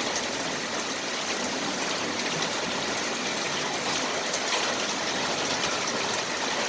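Pea-sized hail coming down in a storm: a steady hiss with scattered sharp ticks of hailstones striking.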